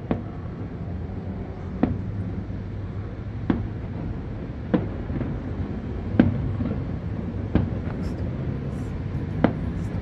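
Aerial fireworks shells bursting, about seven sharp bangs spaced a second or two apart, over a steady low city hum.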